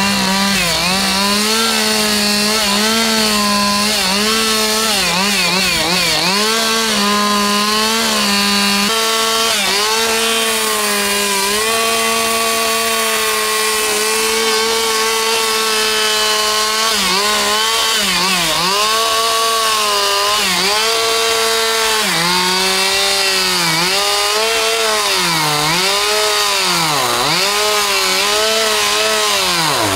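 Chainsaw engine running at high revs while cutting wood. Its pitch drops and recovers about once a second as the chain bites in and comes free, holds steady for several seconds in the middle, then dips again, more deeply, near the end.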